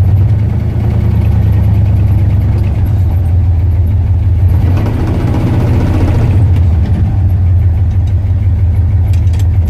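1974 Ford F250 pickup's engine running with a steady low hum as the truck is driven. A broader rushing swell rises and falls for about two seconds in the middle.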